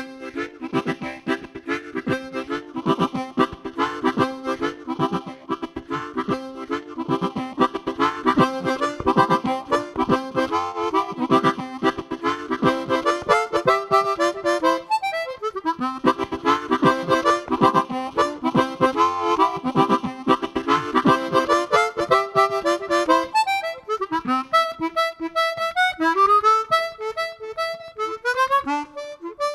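Chromatic harmonica playing fast, dense runs of notes, with a brief pause about fifteen seconds in. Near the end it turns to slower, sparser phrases with sliding notes.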